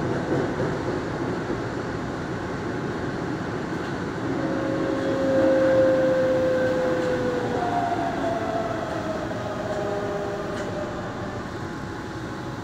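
Keihan electric commuter train rolling through its tunnel into the terminal platform: a steady rumble of wheels on the rails, with a motor whine that falls in pitch as the train brakes, from about four seconds in until about ten seconds in.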